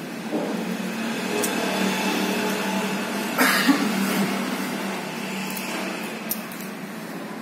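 A steady mechanical hum, with a short hissing burst about three and a half seconds in and a few light clicks later.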